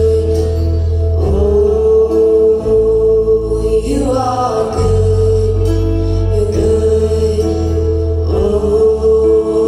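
Live worship song: a woman sings phrases into a handheld microphone over a held chord and low bass notes that change every few seconds.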